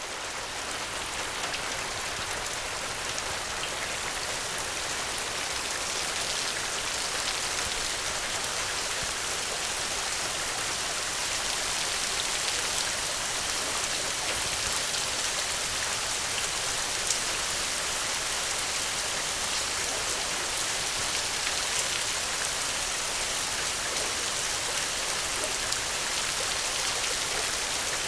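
Steady gentle rain falling, an even hiss with scattered drop ticks. It swells up over the first second or two, then holds steady.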